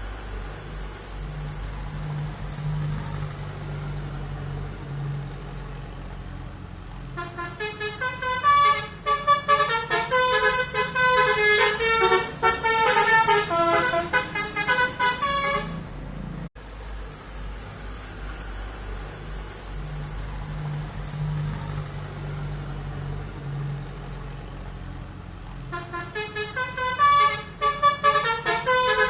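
Bus engine idling with a steady low rumble, then a Basuri 'telolet' multi-tone bus horn playing a quick melody of shifting notes for about nine seconds. The idling resumes, and the telolet melody starts again near the end.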